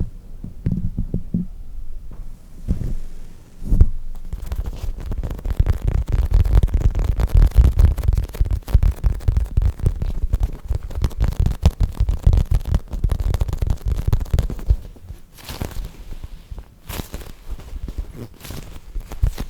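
Foam squishy toy squeezed and rubbed right against the microphone: a dense run of crackly handling with low thuds, easing into a few short hissy sweeps near the end.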